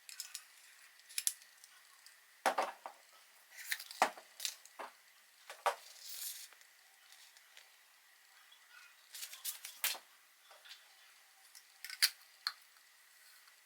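Unboxing handling noises: irregular clicks, taps and short rustles as packaging and parts are handled, in clusters with gaps between.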